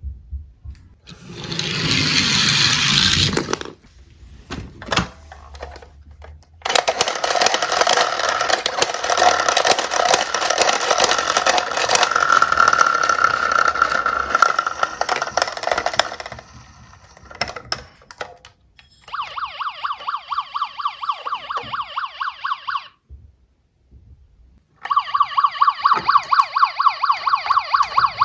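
Battery-powered electronic siren sounds from toy emergency vehicles, switched on one after another. Near the end a fast pulsing electronic siren, about three pulses a second, sounds twice with a short break between.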